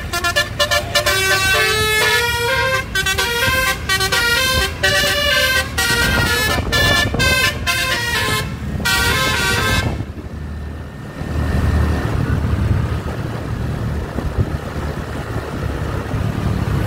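Bus telolet horn, a multi-tone musical air horn, playing a quick tune of short stepping notes that starts and stops, for about ten seconds. It then stops, leaving steady engine and road rumble.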